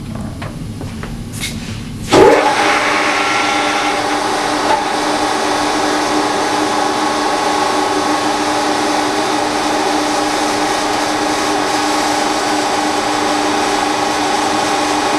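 Bosch diesel injection-pump test bench starting up about two seconds in, with a sudden onset and a brief rise in pitch, then running with a steady hum and whine of several tones.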